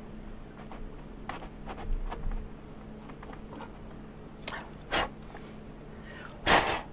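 Faint clicks and scrapes of a small hand tool working holes into the plastic hull of a model kit, with two sharper clicks past the middle and a louder brief scuff near the end.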